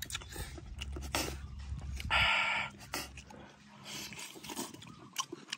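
Close-up eating sounds: wet chewing and biting into a piece of boiled chicken, with many small mouth clicks and one loud slurp about two seconds in.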